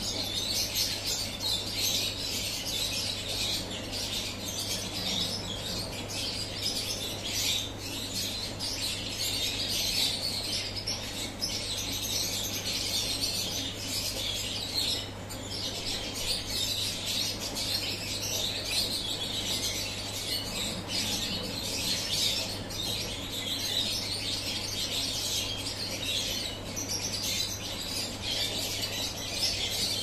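Many small birds chirping at once in a continuous, dense chatter, over a steady low hum.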